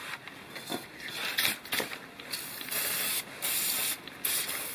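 WD-40 aerosol can spraying penetrating oil onto a turbocharger's turbine housing in several hissing bursts, short at first and longer near the end, to free a sticking wastegate.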